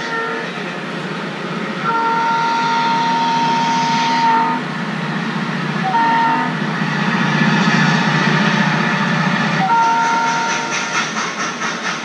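Train soundtrack heard through a TV speaker: a multi-chime locomotive horn sounds several blasts, one long, over the rumble of a passing train. A quick rhythmic clatter begins near the end.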